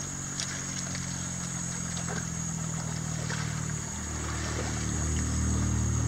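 A motor engine running steadily, its hum shifting in pitch and getting louder about four seconds in.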